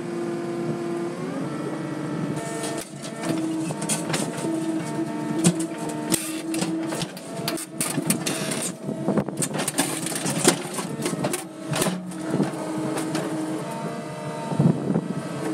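Earthmoving machine's engine running steadily, its pitch rising about a second in, with a long run of quick clanks and scraping of metal on rock and dirt through the middle.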